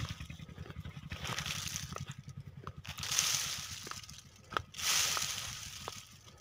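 Urea fertilizer granules broadcast by hand over freshly irrigated soil: a hissing spray with each throw, about every one and a half to two seconds, over the squelch of footsteps in wet ground.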